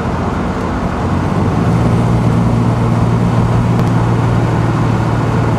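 Inside the cabin of a 1967 Alvis TF21 on the move: its straight-six engine runs with a steady hum over road noise. The engine gets louder about a second and a half in and then holds level.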